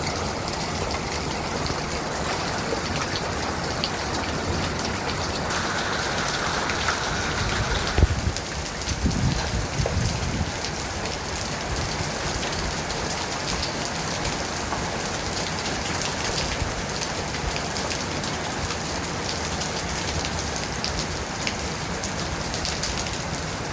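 Heavy storm rain falling steadily, spattering on surfaces with many sharp little hits. About eight seconds in there is a sudden loud crack, followed by a low rumble for a couple of seconds.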